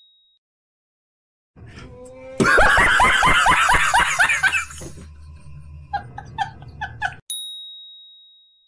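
A man laughing hard in rapid pulses, about four or five a second, that trail off into shorter, quieter bursts of giggling. Near the end a single bell-like ding rings out and fades.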